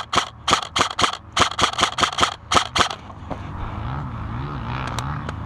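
Rapid, irregular shots from airsoft guns firing for about three seconds. Then a steady engine drone takes over, its pitch wavering up and down.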